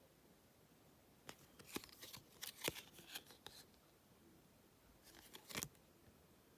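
Trading cards and their pack wrapper being handled: quiet, crisp clicks and rustles, a busy cluster from about a second in and a shorter one near the end.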